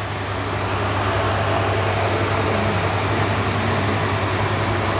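Steady whoosh and low hum of a room air conditioner running.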